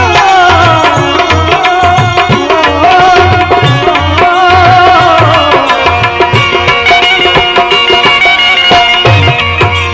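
Instrumental interlude of a live Gujarati devotional bhajan: a sustained, sliding melody over a steady rhythm on tabla and small percussion.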